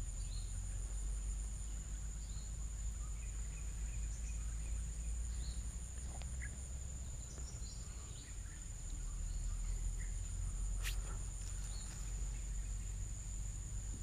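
Insects droning steadily at a high pitch, with a few faint bird chirps and a low rumble underneath. A single sharp click about eleven seconds in.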